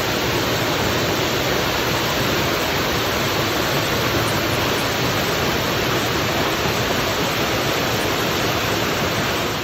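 Moss Glen Falls waterfall: a steady, even rush of falling water.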